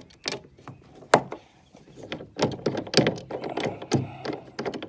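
Stainless steel hardware of a radar-mount hinge adapter being handled: a run of sharp metallic clicks and knocks, uneven in spacing, as the locking parts are worked loose.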